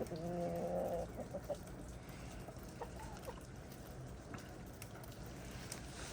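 Domestic chickens calling: one drawn-out hen call lasting about a second at the start, then a few short, soft clucks.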